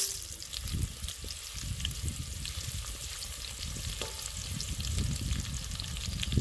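Chopped onions frying in hot cooking oil, sizzling and crackling steadily, while a wooden spoon stirs them around a metal saucepan.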